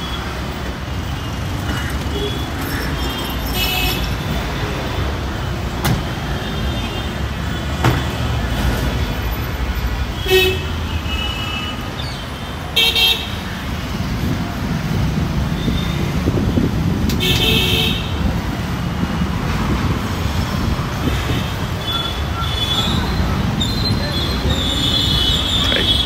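Busy city street traffic: a steady rumble of engines, with several short vehicle horn toots sounding at intervals and voices of passers-by.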